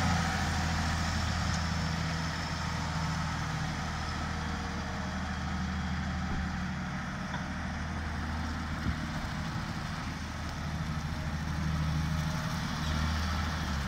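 Caterpillar 924G wheel loader's six-cylinder diesel engine running steadily as the loader drives at low speed. It fades in the middle and grows louder again near the end as the machine comes back closer.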